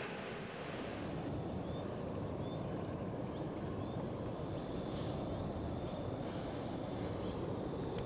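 Steady low rush of floodwater pouring through the Three Gorges Dam spillways, with a few faint high chirps about halfway through.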